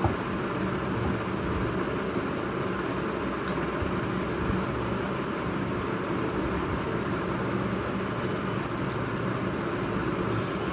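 Steady low mechanical hum with hiss, unchanging throughout, with a few faint clicks.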